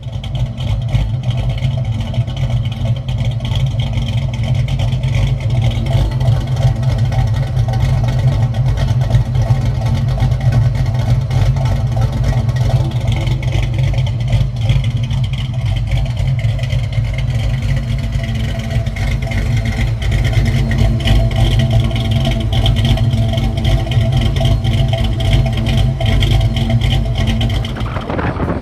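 Saleen Mustang's 5.0 V8, rebuilt with a B303 cam and 1.7 roller rockers, idling steadily.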